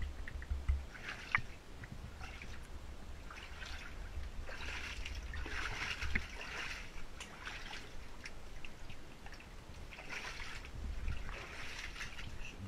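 Wellington boots wading through shallow water in a flooded mine tunnel: irregular sloshing and splashing in bursts, with a few sharp drip-like clicks over a low rumble.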